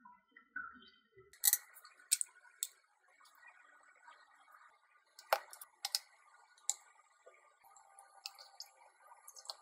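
Light, sharp clicks and taps on a glass plate as pasta is plated by hand, with cherry tomato halves being set down and a spoonful of pesto added. The taps are scattered and irregular, over a faint steady hum.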